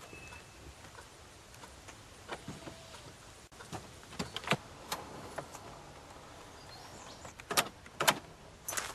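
Scattered light clicks and knocks from a car as its driver gets out: handle, latch and door being worked. The sharpest knocks come near the end.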